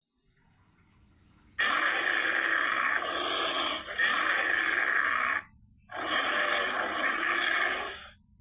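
Creature vocal sound effect for a humanoid moray eel: a rough, noisy roar-like call lasting about four seconds, then after a half-second break a second call of about two seconds.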